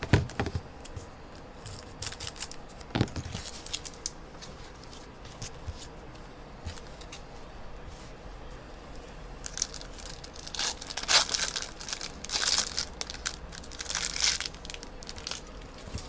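Plastic wrapping and cardboard trading-card mini boxes being torn open and crinkled by hand: a few sharp clicks early, then a dense stretch of tearing and crackling rustle in the second half.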